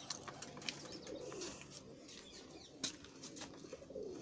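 Pigeon cooing in the background, a low call a little over a second in and again near the end. A few light clicks come from the oil dipstick cap being screwed into a motorcycle engine's filler hole, the sharpest near three seconds in.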